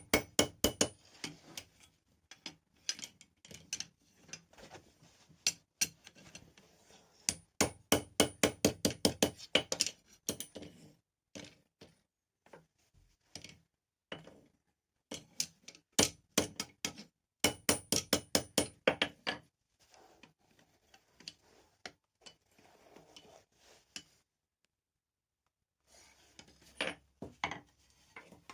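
Hand hammer striking steel on an anvil in quick runs of ringing blows, several a second, with short pauses between the runs. The sound cuts out completely for about two seconds near the end.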